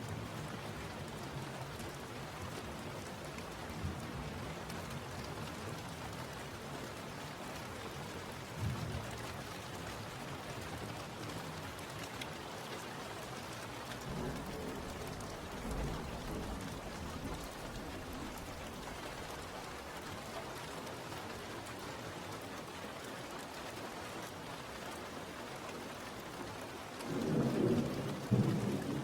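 Steady rain falling, with thunder rumbling a few times and the loudest roll near the end.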